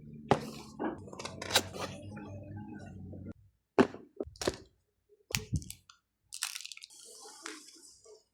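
Unboxing handling of a mechanical keyboard's packaging: a series of separate sharp knocks and cracks of plastic and cardboard. A stretch of crinkly rustling comes near the end.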